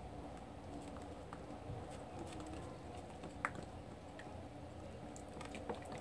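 Wooden spoon stirring a thick glue-and-activator slime mixture in a bowl: faint, irregular taps and clicks of the spoon against the bowl, with one sharper tap a little past halfway.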